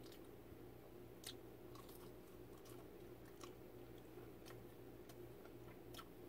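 Faint chewing of a mouthful of food, with a few soft, scattered mouth clicks.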